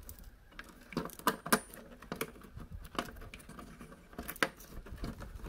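Scattered sharp plastic clicks and taps as a bulb socket on its wiring harness is handled and pushed against the back of a plastic tail light housing, the loudest pair of clicks about a second and a half in.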